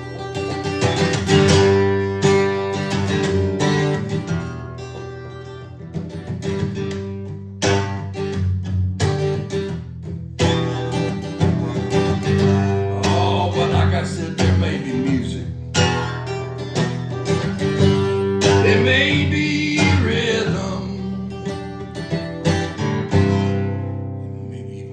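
Acoustic guitar strummed and picked in an instrumental passage between verses, fading down near the end.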